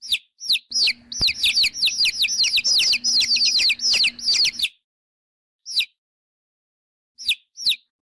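Baby chicks peeping: high, short peeps that fall in pitch, a few single ones, then from about a second in a rapid run of many overlapping peeps lasting about four seconds, then single peeps again near the end.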